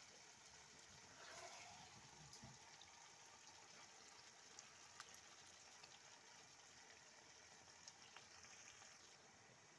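Faint sizzle of a frying pan as chopped tomatoes are poured from a bowl onto chickpeas and potatoes, with a few light clicks.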